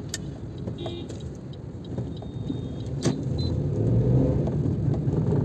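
Cabin noise of a moving car: a steady low rumble of engine and tyres on the road, with a couple of sharp clicks. The rumble grows louder in the last second or so.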